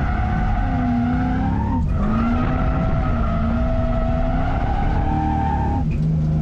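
Drift car sliding, tyres squealing with a wavering pitch over a steady engine, with abrupt changes in the sound about two seconds in and near the end.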